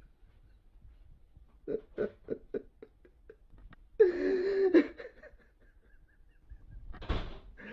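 A man sobbing: a run of short, quick catching sobs about two seconds in, then one drawn-out wailing cry a couple of seconds later.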